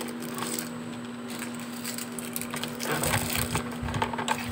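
Small plastic makeup items and a comb being handled and set into a plastic organizer: light rustling, then soft bumps and clicks from about three seconds in, over a steady low hum.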